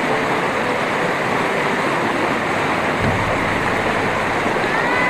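River water rushing steadily through rapids.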